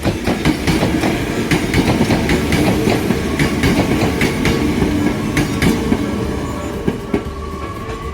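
Electric train running by, its wheels clicking rapidly and irregularly over rail joints over a steady rumble; the sound dies away over the last two seconds.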